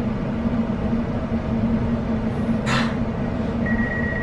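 Interior of a Greater Anglia Class 720 electric multiple unit: a steady rumble with a low hum. A brief hiss comes about two-thirds of the way in, and a steady high whine starts near the end.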